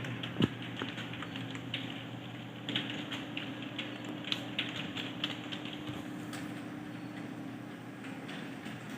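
Typing on a computer keyboard: quick, irregular key clicks, with one sharper click about half a second in. The keystrokes grow sparse after about six seconds, over a steady low hum.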